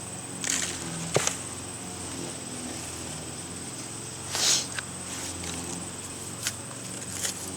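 Shovel digging into garden soil: a few scrapes and knocks, the loudest a gritty scrape about four and a half seconds in, over a steady low engine drone.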